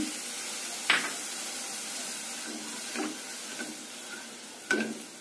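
Spiced masala sizzling steadily in a hot kadai as water goes in, the hiss slowly fading. A silicone spatula stirring knocks against the pan three times, loudest about a second in.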